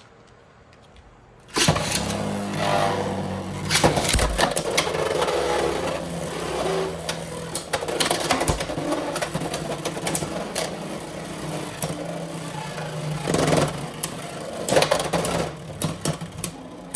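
Beyblade X spinning tops battling, launched about a second and a half in: a steady whirring with frequent sharp clicks and knocks as they collide.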